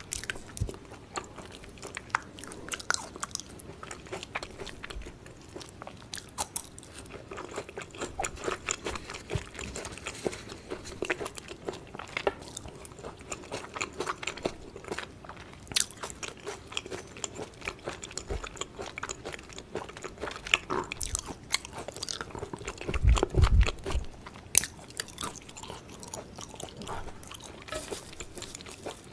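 Close-miked eating of yukhoe (raw beef tartare) and its sides: steady chewing with wet mouth clicks and crunches. A few louder dull thumps come late on.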